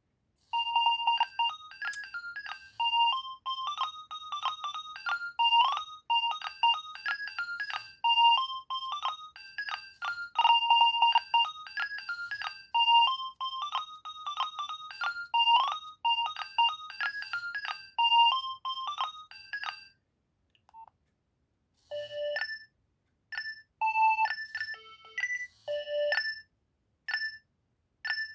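Nokia 2300 mobile phone playing its built-in ringtones: a bright electronic melody plays through twice, stops at about twenty seconds, and after a short pause a different ringtone tune begins.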